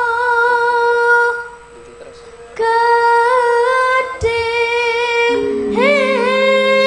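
A boy sings a slow Javanese song into a microphone with long held, wavering notes. He breaks off for about a second, then carries on. Low held tones join underneath about five seconds in.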